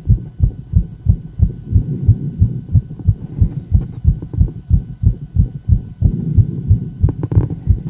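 A woman's heart beating fast: low thumps repeating evenly, about three a second.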